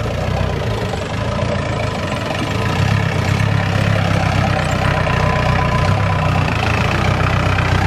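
Mahindra jeep's engine running as the jeep drives up a rough dirt track toward the listener, getting a little louder about three seconds in.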